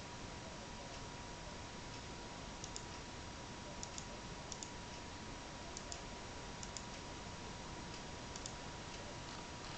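Faint, short clicks in small double or triple clusters, irregularly spaced about every second from roughly three seconds in, over a steady background hiss and a faint steady high tone.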